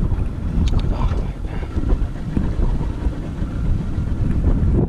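Steady wind rumbling on the microphone, with a few light clicks and knocks in the first second or so.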